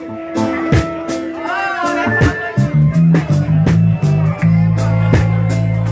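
Live reggae band playing: electric bass, electric guitar and drum kit keeping a steady beat, with loud held bass notes coming in about halfway through.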